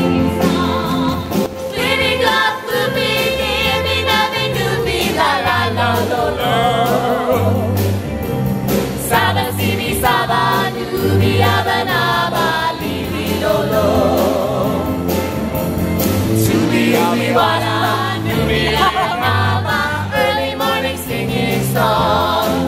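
A group of singers singing together in chorus, with wide vibrato, over a live rock band of drums, guitar and keyboard with a steady bass line.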